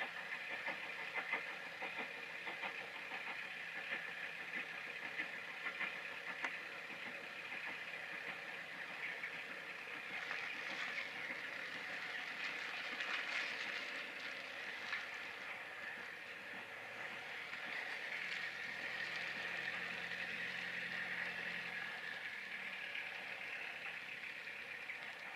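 Steam-hauled passenger train pulling away: wheels clicking over rail joints at first, then the steady rush of the locomotive working hard heard from a distance. It swells twice and fades near the end.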